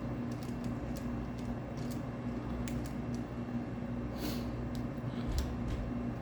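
Faint, scattered small clicks and a brief scrape about four seconds in from metal lock tools working inside a DAC Gunmaster trigger lock, over a steady low hum.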